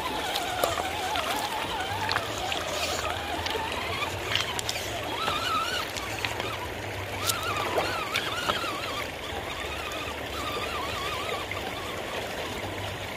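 Electric motor and gears of a Redcat Gen 7 Pro RC crawler truck whining, the pitch wavering up and down with the throttle, over running and splashing river water, with a few sharp clicks.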